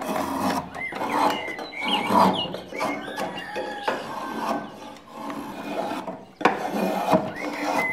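A hand blade, as on a shaving horse, shaving wood in repeated scraping strokes roughly a second apart.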